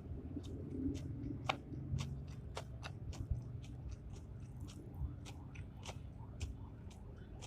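A person chewing and eating close to the microphone, with many short, irregular mouth clicks.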